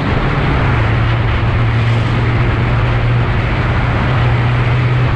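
Kawasaki Ninja H2's supercharged inline-four engine running at a steady, held throttle under way, its even low note over a constant rushing noise.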